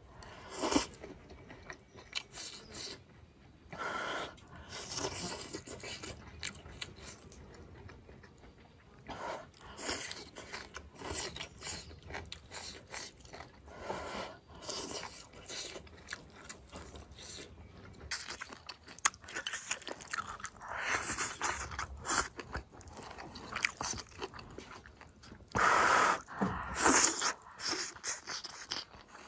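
A person eating close to the microphone: slurping broth from a bowl, then chewing and biting mouthfuls of pork intestines, greens and rice, with chopsticks clicking and scraping on the bowl in irregular bursts.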